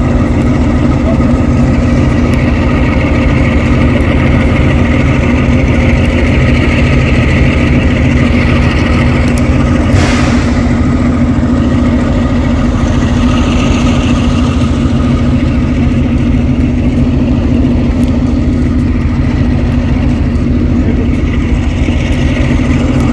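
An engine idling with a steady, unchanging drone. One brief sharp click or knock comes about ten seconds in.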